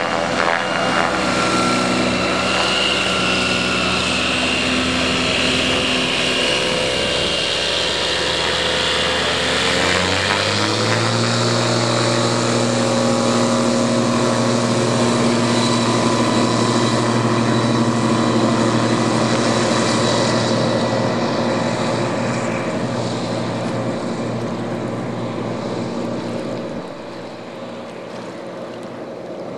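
Bush Caddy R-80 floatplane's 80 hp Rotax 912 four-cylinder engine and three-blade Warp Drive propeller at high power during a takeoff run on the water. The steady note steps up in pitch about ten seconds in, then fades, with a sudden drop in level near the end.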